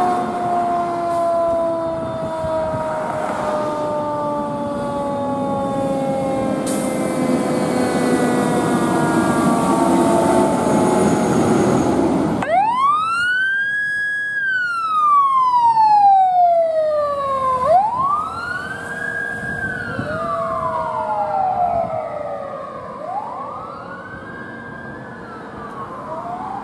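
Fire engine's siren winding slowly down in pitch over the truck's diesel engine. After a cut about halfway through, an ambulance's wail siren rises and falls in long sweeps, and a second wailing siren joins near the end.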